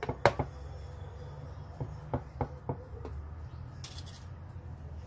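Sharp clicks from a snap-off utility knife being handled: a loud pair just after the start, then five lighter clicks about a third of a second apart, followed by a short hiss about four seconds in. A low steady hum runs underneath.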